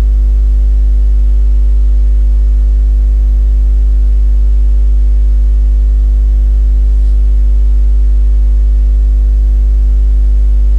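Loud, steady electrical mains hum with a buzzing stack of overtones, unchanging.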